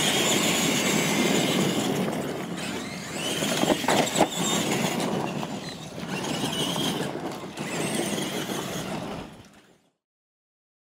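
Radio-controlled monster trucks racing on dirt, their electric motors whining up and down in pitch over the crunch of the tyres, with a couple of knocks about four seconds in. The sound fades out near the end.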